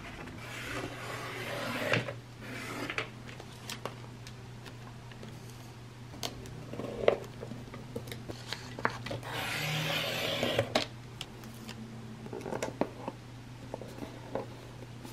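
Paper and cardboard being handled: sheets rustling by a printer, then fingertips rubbing and smoothing a paper sticker label flat onto a kraft cardboard box, with scattered small taps and longer swishes of rubbing. A low steady hum sits underneath.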